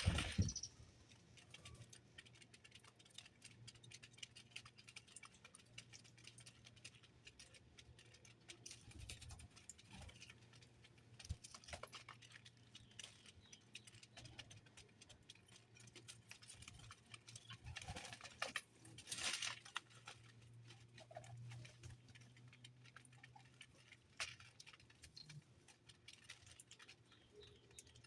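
Faint, irregular light tapping and clicking over a low steady hum, with a few louder taps about two-thirds of the way through.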